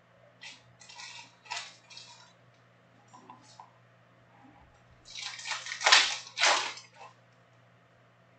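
Foil trading-card pack wrapper crinkling and tearing open: a few short crackles in the first two seconds, then a louder, longer crackle about five to seven seconds in.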